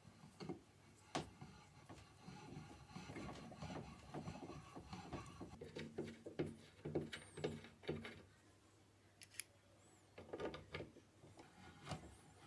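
Small parts and tools being handled on a workbench: scattered clicks and light knocks, with a busier stretch of rubbing and scraping from about two to eight seconds in, and a few brief high squeaks.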